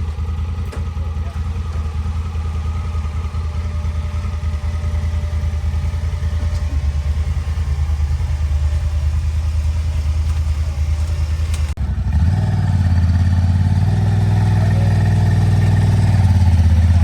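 Vehicle engine running steadily; about twelve seconds in it briefly dips, then comes back louder and rises slightly in pitch, as under more throttle.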